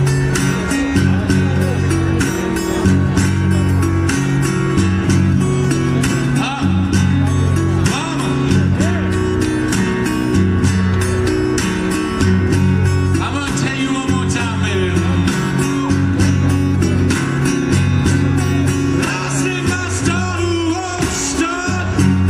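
Live blues band playing an instrumental passage: a guitar lead with bent notes over a stepping bass line and steady drums.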